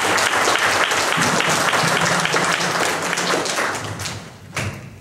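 Audience and panel applauding with a dense clatter of hand claps that dies away about four seconds in, followed by a single thump.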